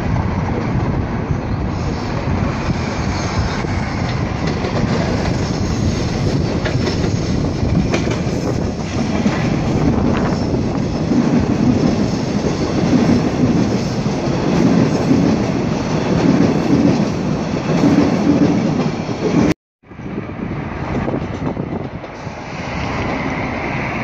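Toronto Rocket subway train passing close by on open-air track, a steady rumble with a rhythmic clickety-clack of wheels over the switches and rail joints, and some wheel squeal. Near the end the sound drops out for a moment and resumes quieter.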